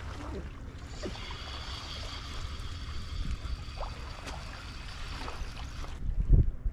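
Outdoor wind noise rumbling on the microphone, with a faint steady high whine through most of it. About six seconds in, the wind buffets the microphone harder in low gusts.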